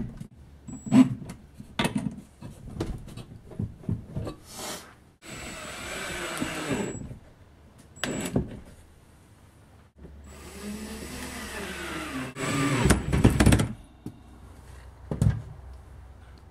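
Cordless drill running in two short bursts of a couple of seconds each, driving screws into a wooden block, with sharp knocks and clatter from parts being handled in between; the loudest knocks come a little past the middle.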